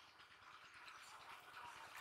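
Near silence, with faint water swishing as a cast net is worked in shallow water.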